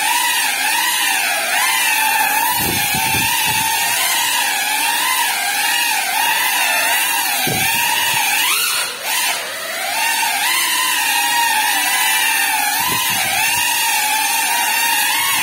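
Small GEPRC FPV quadcopter's motors and propellers whining, the pitch wavering up and down with the throttle; about nine seconds in it dips and then climbs sharply. A few low thumps come through underneath.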